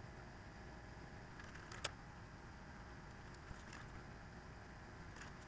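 Quiet, steady low hum with a few light clicks, the sharpest about two seconds in: small handling sounds of a soldering iron and solder wire as the legs of a DIP switch are tinned.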